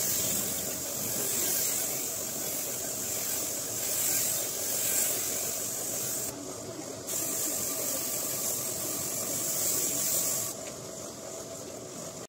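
Compressed-air spray gun hissing steadily as it sprays wood polish, pausing briefly about six seconds in and cutting off a second or two before the end.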